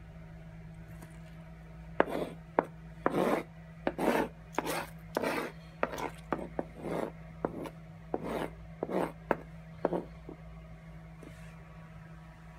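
Kitchen knife cutting a tomato on a cutting board: irregular rasping slicing strokes and sharp taps of the blade on the board, starting about two seconds in and stopping around ten seconds.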